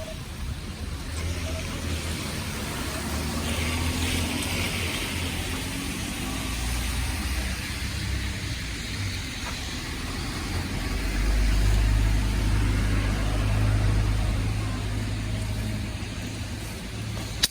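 Street traffic: car engines rumbling with tyre noise as vehicles pass, the loudest pass about eleven to fifteen seconds in, and a short knock at the very end.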